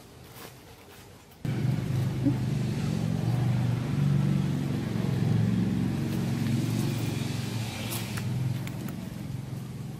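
An engine running steadily, cutting in suddenly about a second and a half in and easing a little near the end, with one sharp click about eight seconds in.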